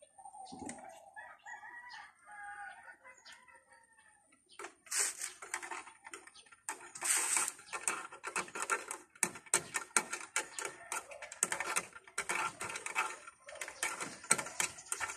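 A cat scratching its claws on a wooden table leg: rapid, rasping strokes that begin about four seconds in and go on in quick runs. Before that, a drawn-out call sounds in the first few seconds.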